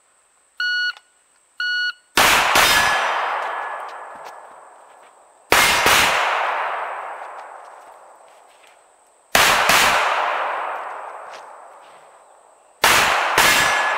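Two short electronic shot-timer beeps signal the start, then a .45 ACP Rock Island 1911 pistol fires four quick pairs of shots about three and a half seconds apart, one pair per station of a box drill. Each pair rings out in a long echo that dies away over a few seconds.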